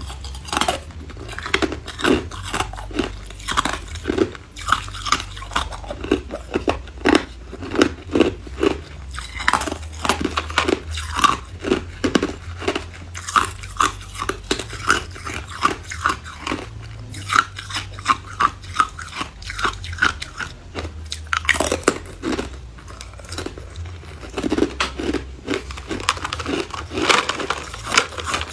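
Hard ice cubes bitten and chewed close to the microphone: a dense, irregular run of sharp crunches, several a second.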